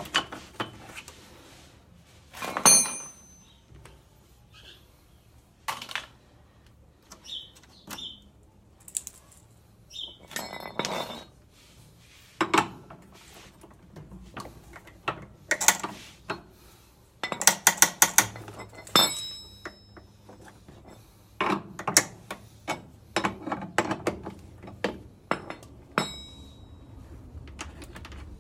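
Hand tools and metal parts clinking and knocking while a top-load washing machine's belt drive and transmission are taken apart: scattered clicks and clanks, some with a short metallic ring.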